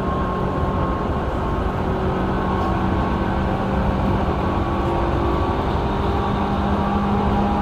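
Tobu 9000 series electric commuter train running at speed, heard inside the passenger car: a loud, steady rumble of wheels and running gear with a steady traction-motor hum, the hum edging up in pitch in the last couple of seconds.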